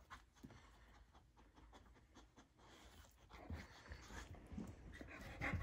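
Boxer dog panting faintly: barely audible at first, growing a little stronger from a little past halfway.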